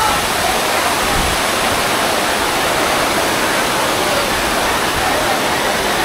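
Giant artificial waterfall pouring off a tall fake-rock tower and splashing onto the rocks below: a loud, steady rush of falling water.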